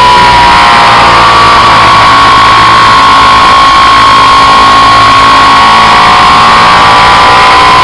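Suzuki Inazuma 750 inline-four engine running loud at a steady high cruising speed, its pitch easing slightly at first and then holding, with heavy wind rush on the fork-mounted microphone. The carburettors have just been adjusted.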